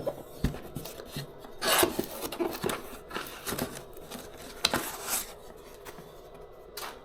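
Packaging being handled while the contents are lifted out of a box: rubbing and rustling with scattered clicks, and two longer scraping swishes about two and five seconds in.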